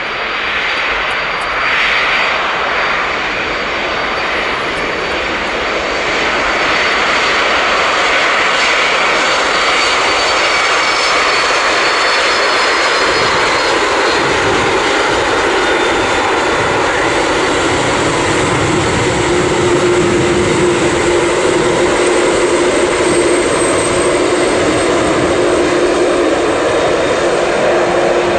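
Boeing 747-400 freighter's four jet engines running at taxi power as the jumbo rolls past. The steady jet roar grows gradually louder, and a steady whine joins in over the second half.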